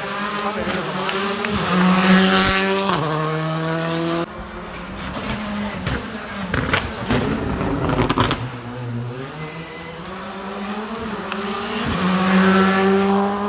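Rally car engine revving hard, its note rising as it accelerates. About four seconds in it cuts off sharply, and a run of cracks and pops follows as the car slows into the hairpin. Near the end the engine note rises again as it accelerates away.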